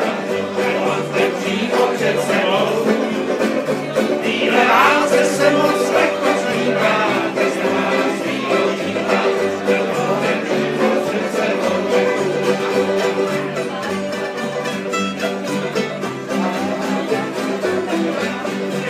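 Banjo being picked in a live acoustic string-band jam, with other string instruments playing along.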